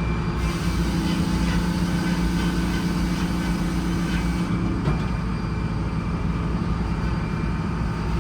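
Sawmill's bus engine running steadily under power. A rushing high noise rides over it for about four seconds, and a single click comes near the middle.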